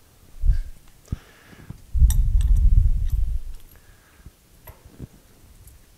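Metal parts being handled and fitted into a lathe tailstock on a steel bench: a dull knock, light clicks, and a low rumble lasting about a second and a half, starting about two seconds in.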